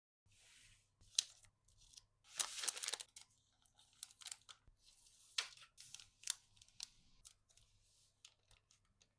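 Close-up handling of nail-art packaging materials: a string of sharp clicks, taps and short rustles, with a longer tearing, crinkling burst about two and a half seconds in.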